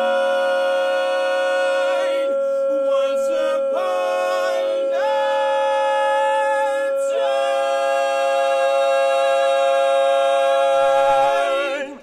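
Barbershop quartet of four men singing a cappella in close harmony, holding the closing chords of a ballad. One voice sustains a steady high note while the other three move through several chord changes beneath it, and the final chord cuts off just before the end.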